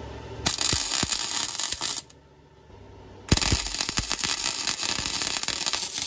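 Harbor Freight 125 flux-core wire welder's arc crackling as the muffler is welded to the exhaust pipe: one bead of about a second and a half, a pause of just over a second, then a steady crackle again from about three seconds in.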